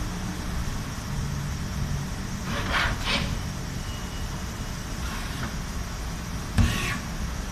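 Steady low machine-shop rumble, with two short hissing bursts about three seconds in, a fainter one later, and a sharp knock near the end.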